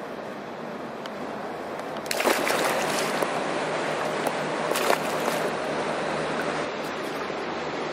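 Water splashing and sloshing in a boat's livewell as zander are handled and lifted out for release, getting louder about two seconds in, with two sharper splashes, about two and five seconds in. A faint steady low hum runs underneath.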